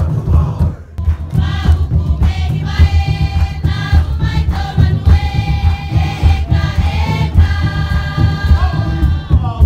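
Group of Marquesan dance performers singing together in long held notes over continuous deep drumming; the singing comes in about a second and a half in.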